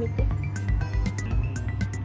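Background music with a steady beat and short, bright melody notes.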